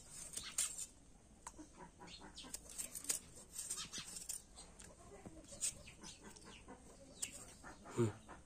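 Short scraping clicks of a curved, foot-held blade slicing the peel and flesh off a green ambarella, repeated at an uneven pace, with one louder knock near the end.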